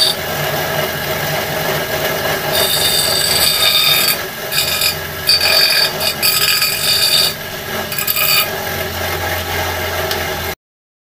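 Home-made bench grinder, driven by a salvaged washing-machine motor, with a piece of steel pressed to the spinning stone wheel in several short passes, each a high grinding screech. Between passes and toward the end only the motor's steady hum is heard, and the sound cuts off suddenly near the end.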